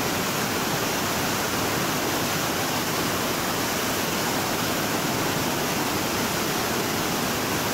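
Waterfall pouring onto rock close by: a steady, loud rush of falling water that keeps an even level throughout.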